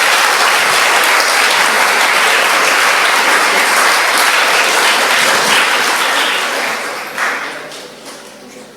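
An audience applauding, a dense steady clatter of many hands that dies away over the last two seconds or so.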